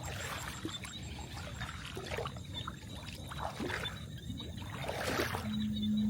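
Water splashing and trickling in irregular, uneven splashes. A steady low hum starts near the end.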